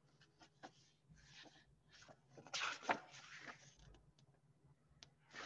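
Faint rustling and flicking of a paperback picture book's pages being handled and turned, loudest about halfway through.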